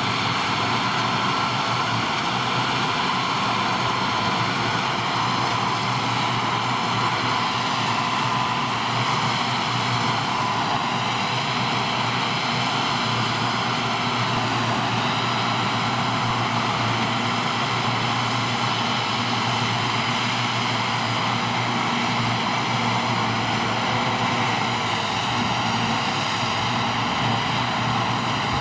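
Ford TW-series tractor working under load, driving a trailed forage harvester that chops grass and blows it into a silage trailer towed by a second tractor alongside. A steady drone of engines and harvester, with a thin high whine over it.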